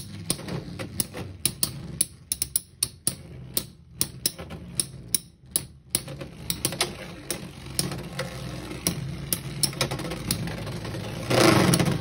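Two Beyblade X spinning tops whirring in a plastic stadium, with many irregular sharp clacks as their metal blades collide. A louder burst comes near the end.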